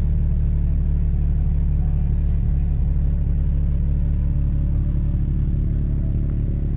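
Toyota Land Cruiser FJ55's engine running steadily with a low, even drone.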